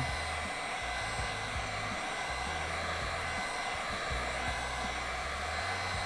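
A steady rushing, air-like hiss over a low hum, unchanging throughout.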